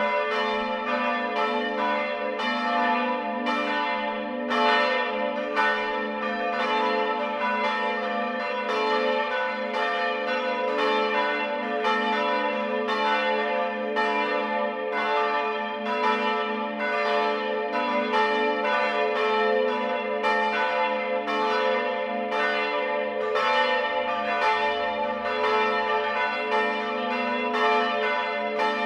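Several church bells in a tower ringing together in a full peal. Their strokes follow each other unevenly, about one to two a second, over the steady hum of their lingering tones.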